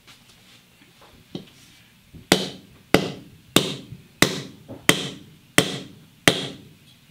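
An axe being knocked against a concrete floor to drive the head onto its new wooden handle. There are seven sharp strikes in a steady rhythm, a little over half a second apart, with lighter taps just before.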